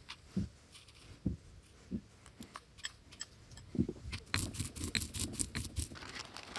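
Dry ingredients tipped from small bowls into a granite mortar, with light clicks and rustles as bowls are handled. There is a quick run of clicks about four seconds in.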